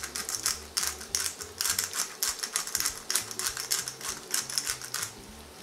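Pepper mill grinding black pepper over a frying pan: a quick run of dry, crunchy clicks that stops about five seconds in.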